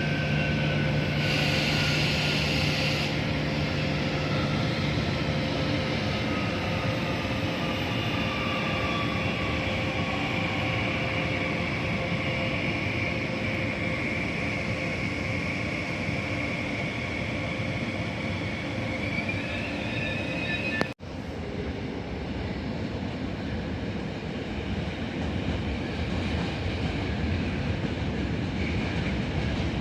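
A train running in the station: a steady rumble with whining tones that slowly fall in pitch. The sound drops out for an instant about two-thirds of the way through, then the rumble carries on.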